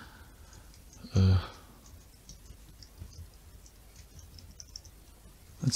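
A few faint, scattered computer keyboard keystrokes while code is being typed, with a short voiced hum or hesitation sound from a man a little over a second in.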